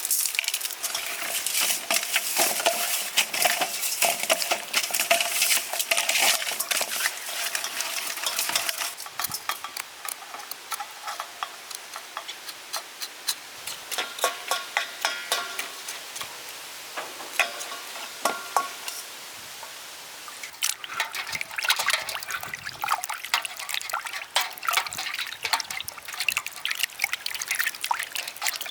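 Hands washing and scrubbing pig ears with salt in a bowl of water: splashing and sloshing with many small clicks and rubs, busiest at the start and again in the last third.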